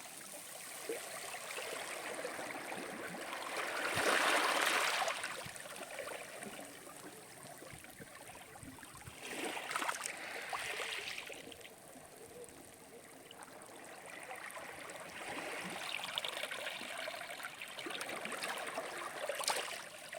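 Sea waves breaking and washing up a shore: a rushing wash that swells and fades in about three slow surges, the loudest about four seconds in.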